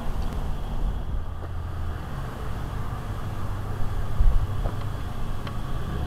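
Steady low rumble on a helmet-mounted action camera's microphone as the wearer walks across pavement, with a few faint thuds about four seconds in.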